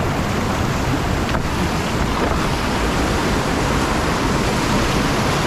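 Steady rush of whitewater in a river rapid, heard up close from a kayak sitting in the current.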